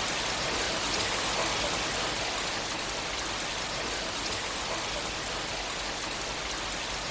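Steady, even hiss that sounds like rain, with no separate events.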